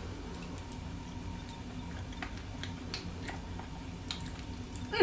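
Faint, scattered little clicks of forks against a plate while cheesecake is being eaten, over a steady low hum.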